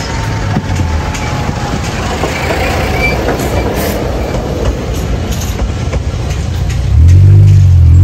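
Toden Arakawa Line tram running on its rails, a dense clattering running noise. Near the end a louder engine sound cuts in abruptly and rises in pitch.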